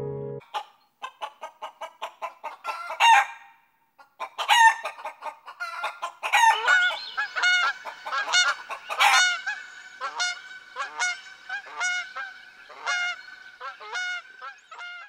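Laughing kookaburras calling: a long run of rapid, repeated cackling notes with a short break about four seconds in, then a denser, louder chorus.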